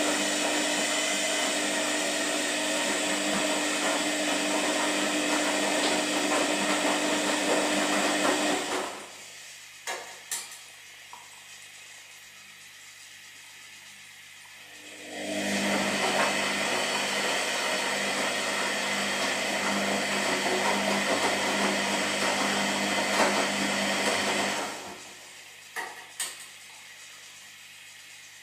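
Washing machine running a wash cycle: the motor and tumbling drum run with a steady hum for about nine seconds, stop with a couple of clicks, rest for about six seconds, then run again for about nine seconds and stop with clicks, the on-off rhythm of the agitation phase.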